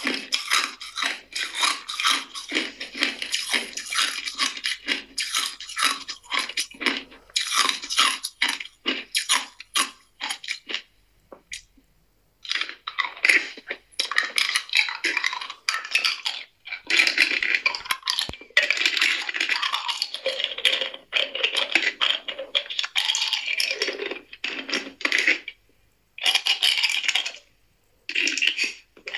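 Hard ice cubes being bitten and chewed close to the microphone: rapid crunching and cracking, with a short pause about eleven seconds in and brief breaks near the end.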